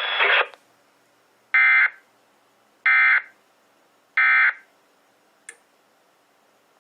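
Emergency Alert System end-of-message code: three short, buzzy digital data bursts about a second and a half apart, marking the end of the broadcast alert. The recorded warning voice cuts off just before them, and a faint click follows.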